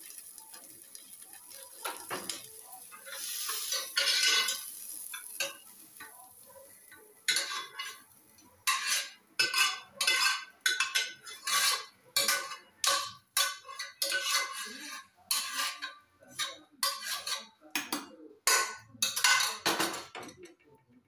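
Metal ladle scraping fried masala out of an aluminium pressure cooker pan into a steel mixer-grinder jar, in a long run of sharp strokes about two a second from about seven seconds in. Before that, softer clatter over a steady hiss.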